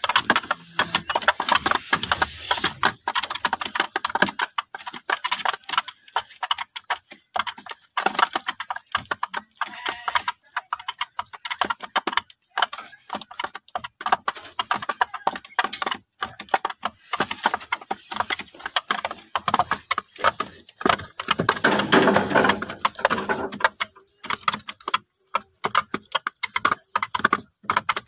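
Young poultry in a crate pecking at a feed dish and shuffling on a wire-mesh floor: a rapid, irregular clatter of clicks and taps, fuller for a couple of seconds near the end.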